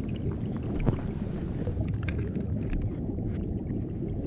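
Underwater ambience picked up by a submerged camera: a steady low rumble with scattered faint clicks and ticks, one slightly louder click about a second in.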